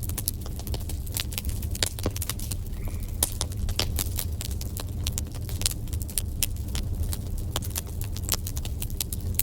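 Wood fire burning in a fireplace, crackling and popping irregularly, many sharp snaps over a steady low rumble of the flames.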